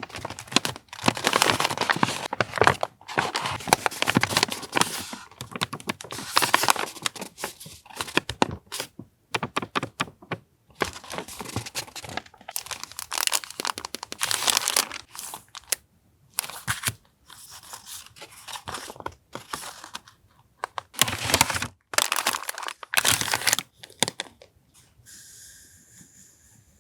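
Paper and plastic packaging of stationery being handled, unwrapped and torn open, in irregular bursts of crinkling and rustling that die down near the end.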